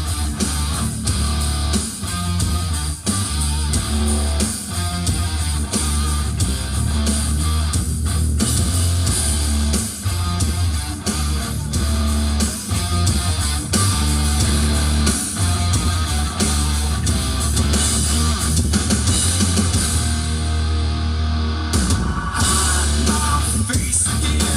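Rock music with electric guitar, drums and a heavy, booming bass line; the treble drops out briefly near the end.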